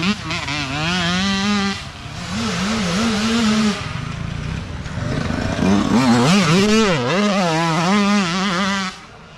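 Small youth dirt bike engines revving up and down as riders go by on a dirt trail, the pitch rising and falling with each blip of throttle. The loudest bike is heard in the last few seconds, and the sound drops away sharply near the end.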